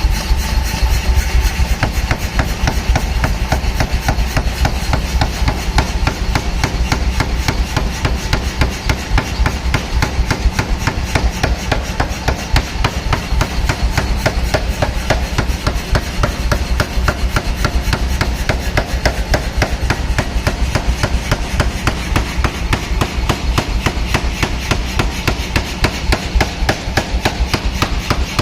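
Pneumatic air forging hammer working, its ram striking in a fast, steady rhythm of metallic blows. Under the blows runs the steady hum of the machine's motor and air compressor.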